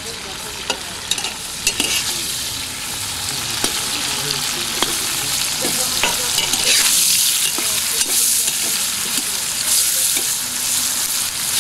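Meat and onion rings sizzling in hot oil in a plov pot, stirred with a metal skimmer that clicks and scrapes against the pot now and then. The sizzling grows louder about halfway through.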